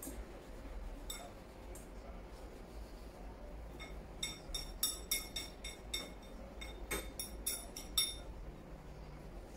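Chopsticks clinking against a ceramic bowl while eating: a string of light, ringing clinks, a few at first, then quick and close together for several seconds before stopping.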